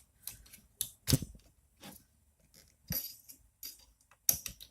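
Small metal screws and parts being handled: a few sharp clinks and knocks with scattered lighter rattling clicks in between.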